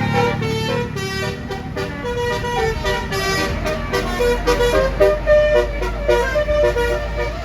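Basuri telolet air horn on a bus playing a quick tune of short stepped notes, with a low rumble underneath from about halfway in.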